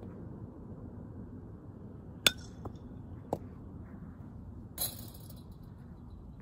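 Sharp impact sounds of softball ground-ball practice: one loud crack a little past two seconds in, two lighter knocks soon after, then a short metallic clink near the end, over a steady low outdoor background noise.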